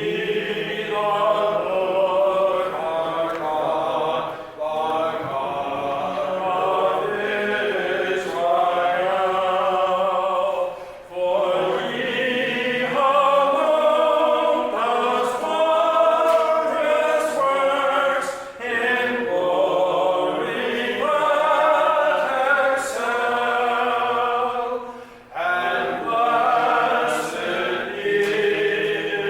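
Congregation singing unaccompanied, many voices together, in sustained phrases of several seconds with brief breaths between them.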